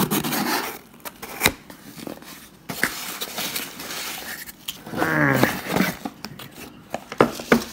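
Cardboard box flaps and foam packing peanuts rustling and crunching as hands dig through the box, with sharp clicks and knocks as a small product box is pulled out. A short pitched sound, about a second long, comes about five seconds in.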